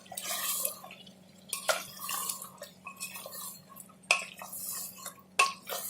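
A spoon stirring and scraping meat with tomato and ground spices in a cooking pot, with a few sharp knocks of the spoon against the pot.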